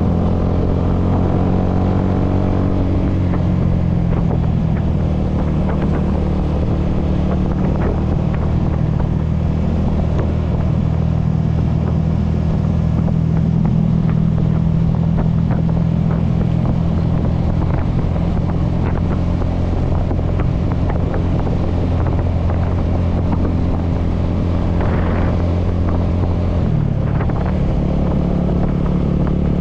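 Honda scooter engine running steadily while riding along at cruising speed; the engine note shifts about 27 seconds in.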